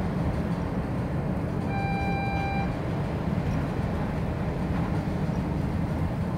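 Class 142 Pacer diesel railbus under way, heard from inside the saloon: a steady low rumble of its underfloor diesel engine and wheels on the rails. About two seconds in, a steady high tone sounds for about a second.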